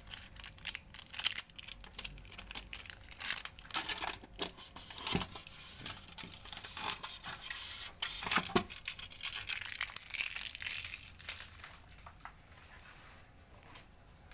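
Packaging being handled and pulled off a new washing machine: irregular crinkling, rustling and tearing with scattered clicks and knocks, dying down near the end.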